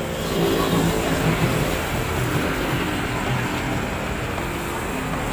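Busy city street traffic: a steady noise of passing vehicles, swelling slightly about half a second in.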